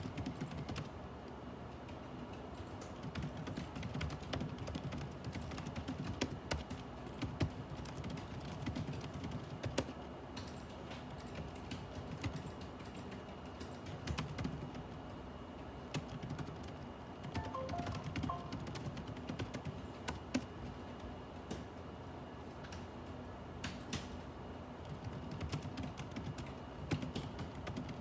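Computer keyboard typing in uneven bursts of clicks with short pauses, over a steady low hum.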